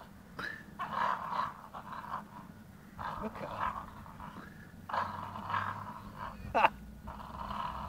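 Staffordshire bull terrier growling and breathing hard in short bursts about every two seconds as it strains to cling to and climb a small dead tree, with one short rising whine about two-thirds of the way through.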